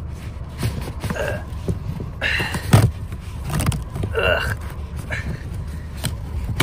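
Old cabin pollen filter of an FN2 Civic Type R being dragged out of its housing by hand: the torn, pleated paper crumples and scrapes against the plastic, with a few short knocks. A steady low rumble runs underneath.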